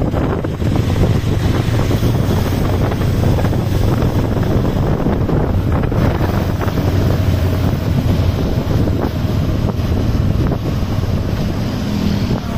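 Heavy wind buffeting the microphone on a moving motorbike, over a steady low engine and road rumble.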